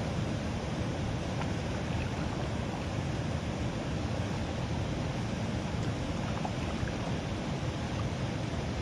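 Steady rushing of water flowing out of a drainage culvert into the ditch, an even noise without changes.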